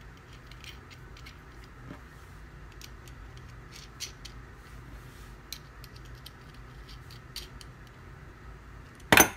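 Light metal clicks and taps as lock nuts are threaded by hand onto the bolts of a 3D-printed roller block, over a steady low hum. About nine seconds in there is a single loud, sharp clack.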